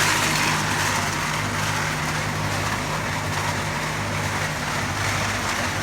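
Concrete mixer's engine running steadily, a constant low hum with a hiss over it.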